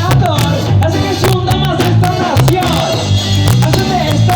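Live ska band playing: a steady bass line and a regular drum beat, with melody lines that slide down in pitch. The recording is loud and of poor quality.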